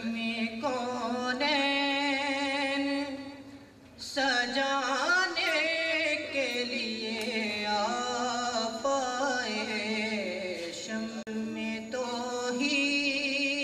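A young man singing a naat, a devotional poem in praise of the Prophet, solo at a microphone. He sings in long held notes with wavering ornaments and pauses briefly about four seconds in.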